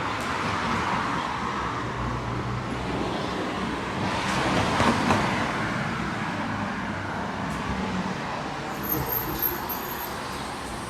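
City street traffic: steady roadway noise, with one vehicle passing close and loudest about five seconds in.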